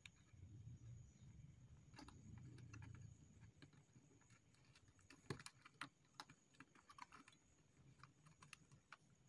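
Faint, scattered small clicks and taps as fingers handle wires and a capacitor inside a plastic TV remote's battery compartment, with a soft low rumble during the first three seconds.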